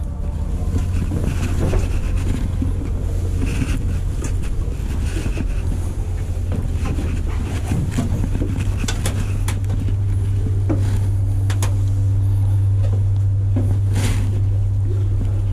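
Steady low machine hum, growing stronger in the second half, with scattered sharp knocks and clicks of hands and gear against the metal fuselage of a B-25J Mitchell bomber as someone climbs through it.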